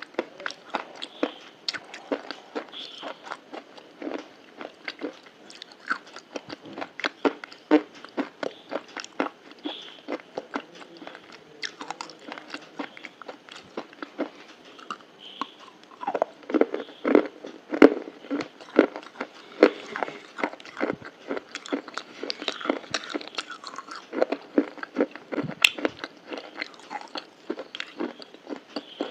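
Close-up crunchy chewing and biting, a fast, uneven run of sharp crunches several times a second, with a denser, louder patch past the middle.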